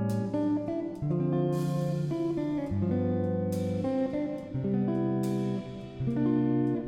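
Background music led by guitar, with chords strummed about once a second.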